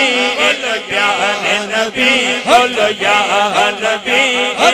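Male voices chanting a short devotional phrase over and over in a steady rhythm, the kind of chanting that carries a naat recital between its sung verses.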